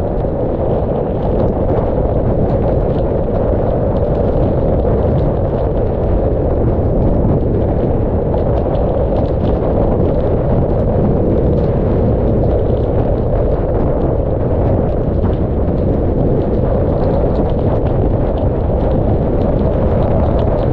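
Hurricane Delta's eyewall wind blasting across a car-mounted camera's microphone: a loud, steady, rumbling roar, with faint ticks of rain.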